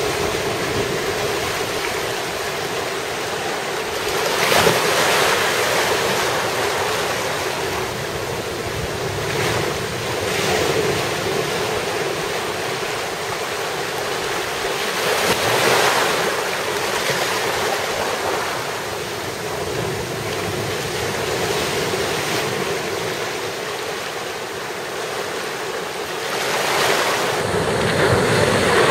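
Sea waves breaking at the mouth of a narrow rocky inlet and surging through it as white water, a continuous wash that swells loud every several seconds as each wave comes in.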